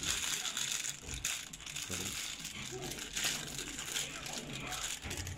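Thin plastic packaging bags crinkling and crackling irregularly as plastic-wrapped parts are handled and pulled out of a cardboard box.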